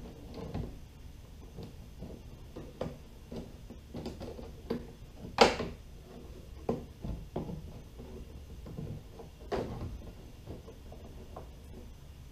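Scattered light knocks, clicks and scrapes of a bent-wire bracket being fitted into a square hole cut in a plastic kayak deck, the sharpest knock about five seconds in.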